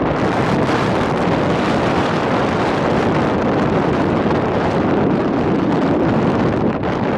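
Loud, steady wind rushing and buffeting over the camera microphone from the airflow of a paraglider in flight.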